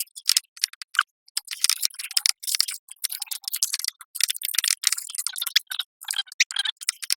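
Aluminium foil crinkling in quick, irregular crackles as dough is pressed and spread into a foil-lined pan.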